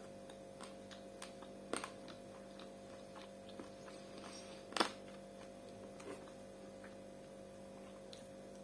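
A steady low electrical hum, with scattered faint clicks and one sharper click about five seconds in.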